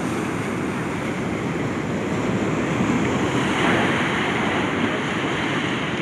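Storm waves breaking and washing along a rocky shore in a steady roar of surf, with one wave crashing louder about three and a half seconds in. Wind rumbles on the microphone.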